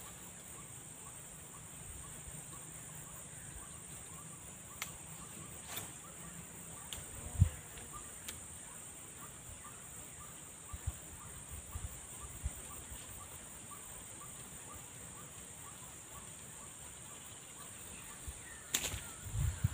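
Quiet rural outdoor ambience: a steady high-pitched hiss, faint regular ticking through the first half, and a few scattered taps and knocks, the loudest a dull thump about seven seconds in.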